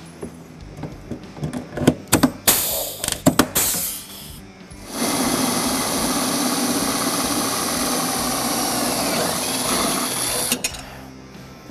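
A rivet gun setting blind rivets in aluminium running boards: short hisses, each ending in a sharp snap as a rivet pulls tight and its stem breaks off, several in quick succession. About five seconds in, a power drill starts boring steadily through the aluminium and runs for about five seconds before slowing off.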